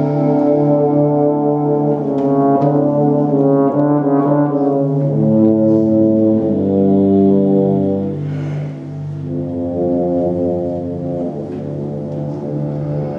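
Euphonium playing solo: held notes, then a quick run of notes that rises and falls a few seconds in, then longer held notes after a short breath. A steady low drone sounds underneath throughout.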